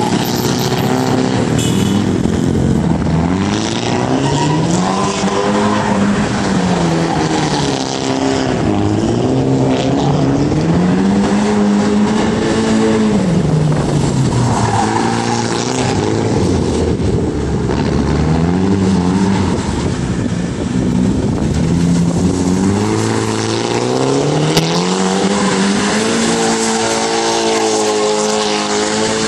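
A car engine revving up and dropping back every few seconds as the car drifts in circles, with its rear tyres skidding and squealing on the pavement.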